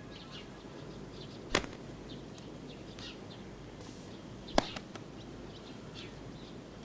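Faint outdoor ambience with scattered small bird chirps, broken by two sharp slaps about three seconds apart.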